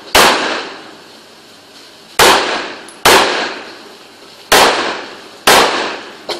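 Gunshots, about five loud ones and a fainter one, each ringing out in a long echoing tail. One comes right at the start, then two pairs about a second apart, and a short, weaker report near the end.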